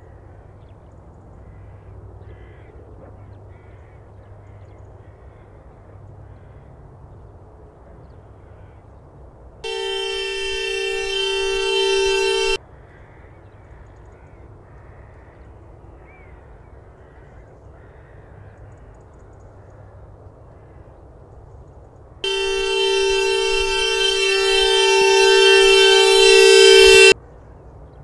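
Two long held blasts of a two-note horn. The first lasts about three seconds and the second about five; each swells louder and cuts off abruptly, over a faint outdoor background.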